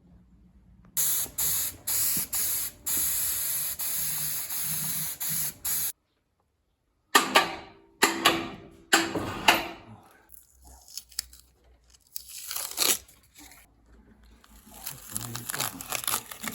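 Hissing spray in a run of short bursts, then, after a break, several sharper short hisses that fade quickly.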